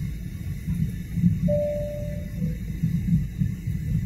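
Airliner cabin noise on descent: the low, uneven rumble of an AirAsia Airbus A320's engines and airflow heard at a window seat over the wing. About a third of the way in, a brief steady tone sounds and steps down in pitch.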